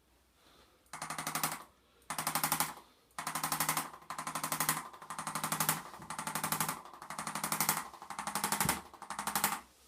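Handheld electric percussion device hammering in about nine short bursts of rapid pulses with a motor buzz, each burst under a second and about a second apart, as it is worked over the patient's muscles.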